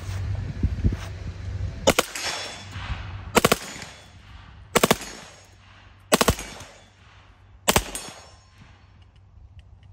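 Reising Model 50 .45 ACP submachine gun firing five short bursts of two or three rounds, about a second and a half apart, until its 12-round magazine runs dry.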